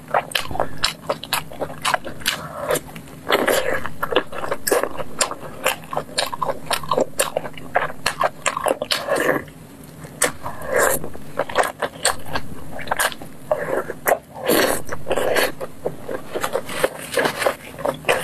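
Close-up eating sounds: biting and chewing sauce-glazed grilled food pulled off bamboo skewers. Many quick wet mouth clicks and smacks run through it, with brief softer chewing patches in between.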